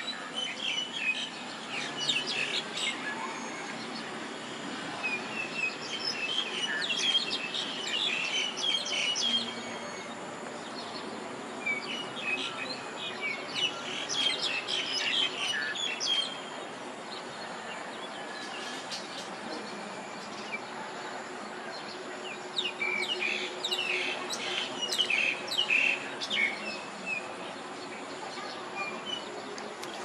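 Eurasian tree sparrows chirping in several bouts of quick, short chirps a few seconds long, with quieter gaps between the bouts.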